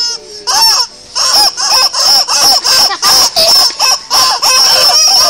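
Laughing noises in quick short bursts, about three a second, made as a silly sound effect, over a steady high-pitched whine.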